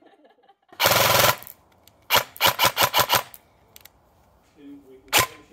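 Airsoft electric gun firing. There is a rapid half-second full-auto burst about a second in, then a string of about seven quick shots, and a single shot near the end.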